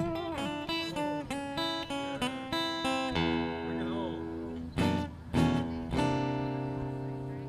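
Live string band music: an acoustic guitar picking a run of single notes and strummed chords over a sustained bass, with no singing.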